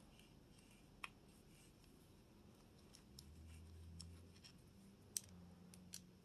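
Near silence with faint handling noise: a few light clicks, the sharpest about a second in and about five seconds in, from small parts and a tool being handled while grips are fitted to a pistol.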